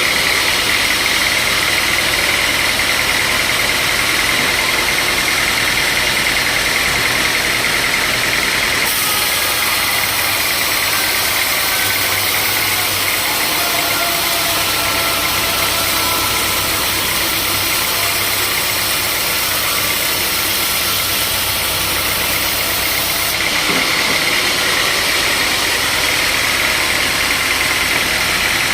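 Sawmill machinery running steadily, a loud, even mechanical noise with a hiss on top. The hiss changes about nine seconds in and changes back about twenty-three seconds in.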